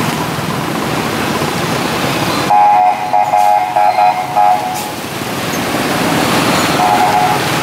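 Steady noise of heavy motor-scooter traffic passing close by. About two and a half seconds in, a vehicle horn sounds a quick series of toots, the loudest thing heard, and one more short toot comes near the end.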